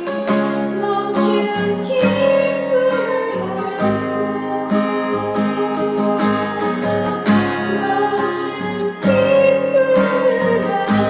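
Acoustic guitar played solo, plucked chords and melody notes ringing on one after another.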